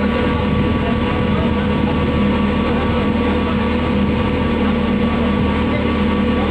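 Septic siphoning (vacuum) truck's engine and suction pump running steadily, a constant hum with several steady tones, as its hose draws water out of a flooded sewer manhole.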